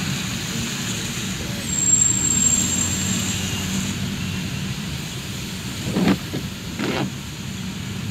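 Steady low engine and road rumble inside a car's cabin, driving on wet streets in the rain. There is a faint high whine about two seconds in, and two short louder sounds about six and seven seconds in.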